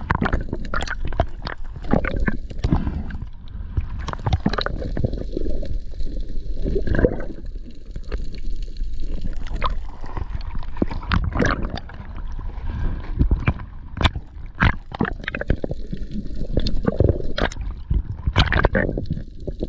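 Water gurgling and sloshing around an action camera underwater during a spearfishing freedive, with irregular knocks and clicks throughout.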